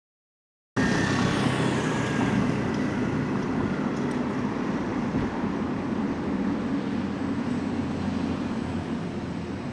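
Porsche Taycan's added exterior sound speaker playing a low, steady synthetic engine rumble mixed with road noise, starting suddenly about a second in and slowly fading.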